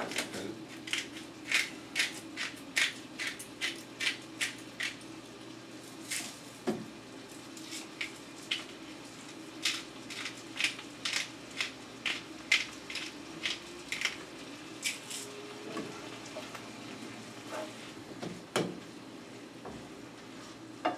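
Salt and pepper grinders twisted over a skillet of browned ground beef: a run of short, sharp grinding clicks, about three a second, pausing briefly and stopping about fifteen seconds in, with a couple of duller knocks and a faint sizzle from the pan underneath.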